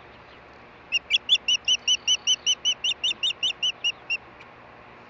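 Osprey calling: a run of about seventeen short, high whistled chirps at about five a second, starting about a second in and lasting some three seconds.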